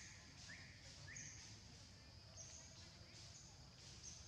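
Faint bird calls: short high whistled notes repeated about once a second, with quick rising chirps in the first second and a half and again near the end, over a steady high hiss.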